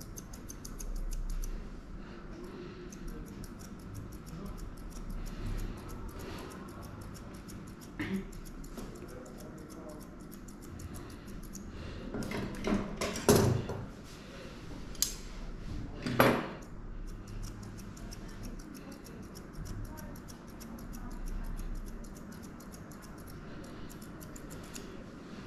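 Grooming scissors snipping through a schnauzer's coat in long runs of quick, even cuts during the finishing trim, with a couple of louder knocks about halfway through.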